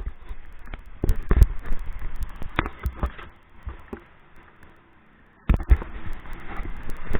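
Irregular knocks and thumps over a rushing noise, quieting for about two seconds in the middle and starting again suddenly.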